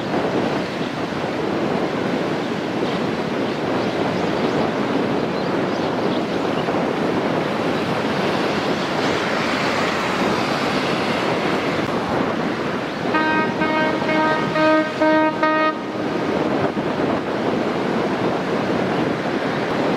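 Strong wind rushing over the microphone. About two-thirds of the way through, a horn sounds a rapid series of short toots lasting a little under three seconds.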